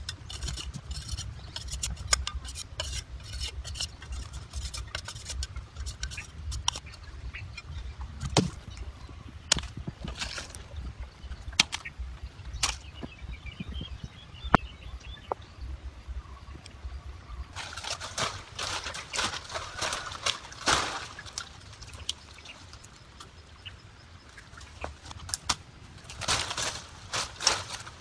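Machete work on bamboo: a run of quick clicking and scraping as a cane is split into thin strips, then single sharp knocks now and then, and in the second half two bursts of dense rustling and crackling of dry bamboo strips and leaves.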